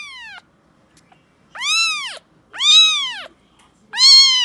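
Kitten meowing in high-pitched calls. A short falling tail of a meow comes at the start, then two meows about a second apart that rise and fall in pitch. Near the end comes a long, loudest meow that slowly falls.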